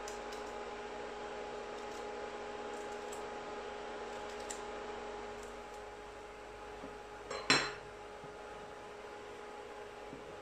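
A metal spoon scraping the skin off fresh ginger root on a wooden cutting board: soft scratching with small ticks that stops about six seconds in, then one sharp clack with a brief metallic ring as the spoon is set down on the board. A steady low hum runs underneath.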